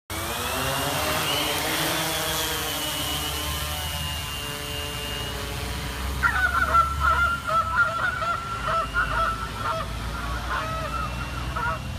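A bird-control drone's motors whine as a steady, slowly shifting tone over a low rumble. From about six seconds in, goose-like honking calls repeat over it.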